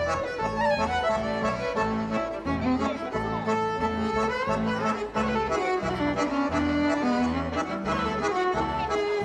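Instrumental background music: a melody over a steady, repeating bass line.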